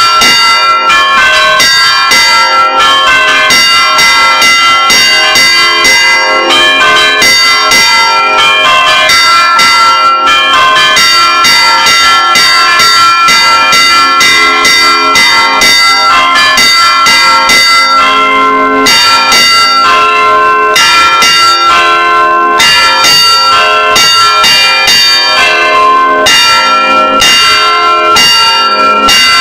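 Church bells rung by hand in a repique: several bells struck in a fast, steady rhythm, their ringing tones of different pitches overlapping. Very loud and close, heard from inside the belfry.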